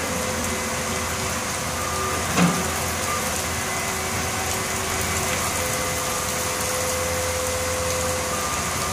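Diesel engines of a front loader and a skid-steer running as they work a debris pile, a steady hum with a few held whining tones, over the steady hiss of rain. A single thump about two and a half seconds in.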